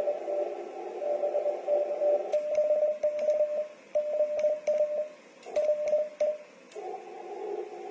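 Morse code (CW) tones from a ham radio transceiver: a single pitch keyed in dits and dahs over narrow-band receiver hiss. About two seconds in, the hiss drops away and the keyed tones come clean with sharp clicks between them. The hiss returns near the end.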